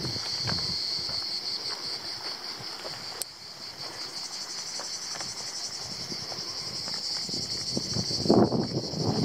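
A chorus of cicadas buzzing steadily, with footsteps crunching on a gravel track that get heavier near the end.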